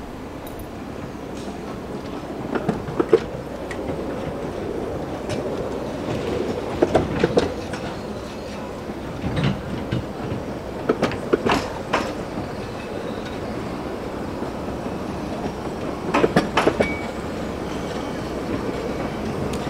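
Narrow-gauge train running along the track: a steady rumble, with the wheels clicking over rail joints in short clusters every few seconds.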